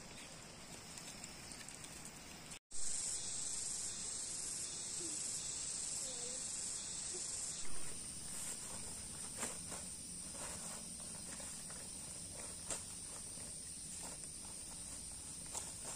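Steady high-pitched drone of insects, with a brief cut in the sound about two and a half seconds in. In the second half, soft rustles and crackles of large banana leaves being handled and laid on the ground.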